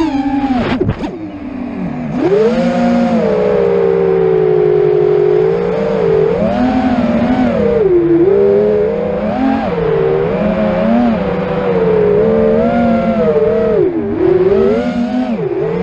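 Quadcopter motors and propellers whining, the pitch constantly rising and falling as the throttle changes. About a second in there is a sharp click, and the whine briefly drops away before it picks up again.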